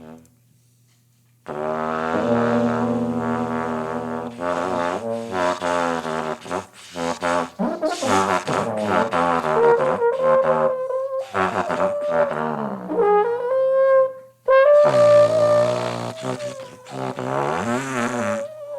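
Trumpet and trombone improvising together in wavering, bending notes with glides in pitch. The playing starts after about a second and a half of near silence and breaks off briefly about two thirds of the way through.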